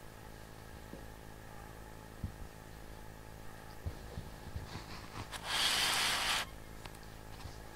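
Cats playing with a plush toy on a string over carpet: faint soft thumps over a low steady hum. About five and a half seconds in comes a one-second rustling scrape, the loudest sound here.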